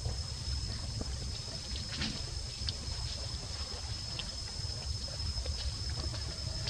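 Outdoor ambience: a steady low rumble, a thin steady high whine, and scattered faint rustles and ticks.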